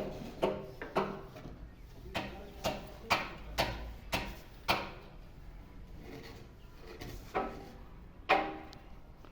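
A series of sharp knocks and taps on hard material, each ringing out briefly, coming about every half second for the first five seconds and then only now and then. These are typical of hand tools striking during building work.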